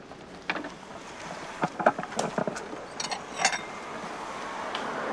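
Short knocks and clinks as a wooden street-food cart is worked, a few scattered and then a quick cluster in the middle, over a steady outdoor hiss that swells near the end.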